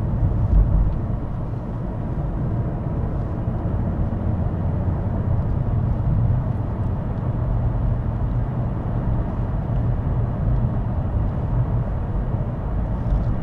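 Mercedes-Benz W220 S500 on the move, a steady low rumble of its 5-litre V8 and tyres on the road, heard from inside the cabin.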